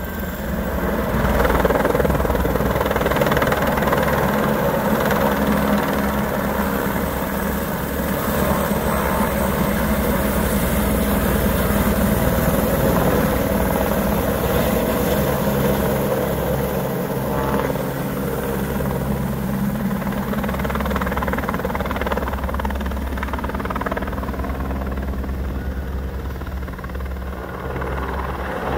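Eurocopter AS350 AStar single-engine turbine helicopter flying low and hovering, with a steady, close rotor beat and engine noise. It grows a little quieter near the end as it moves away.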